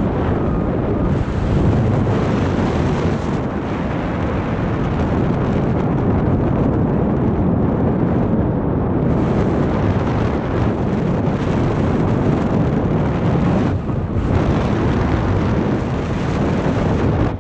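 Wind noise from the airflow of paraglider flight buffeting the camera microphone: a loud, steady rush, heaviest in the low end, that eases briefly near the end.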